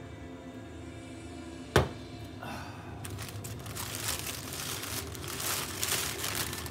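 A plastic courier mailer bag crinkling and rustling as it is handled and turned over, from about three seconds in, after a single sharp click a little before two seconds.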